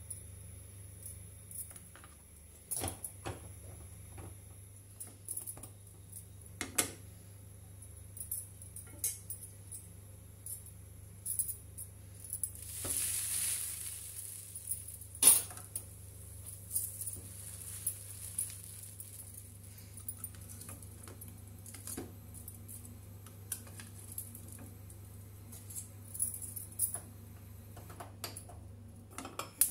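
Scattered light clinks and taps of glass bangles jangling on a wrist and a spoon and bread on a small nonstick grill pan. About halfway through comes a brief sizzle of bread toasting in ghee.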